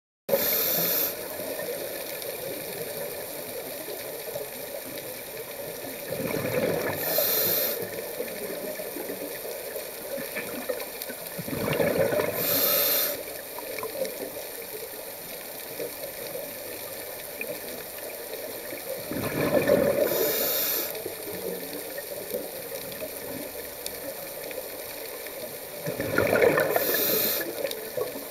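Scuba diver's exhaled breath bubbling out of the regulator, in five gushing surges about six to seven seconds apart, heard underwater over a steady hiss.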